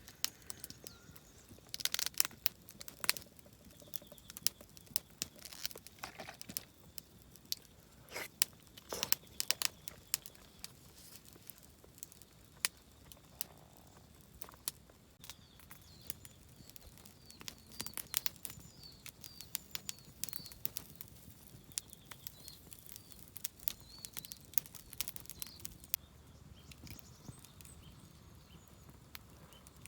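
Crinkling and rustling of something being handled, with scattered sharp clicks and knocks. Small birds chirp faintly through the middle.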